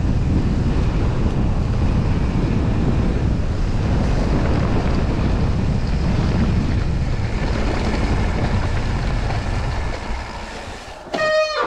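Wind buffeting the microphone, with the rumble of a mountain bike ridden downhill at speed, dying away about ten seconds in as the bike slows. A short, steady high tone sounds near the end.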